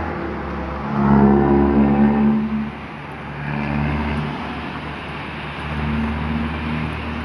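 Car engines running and revving on a flooded road, loudest about a second in, over a steady hiss of heavy rain.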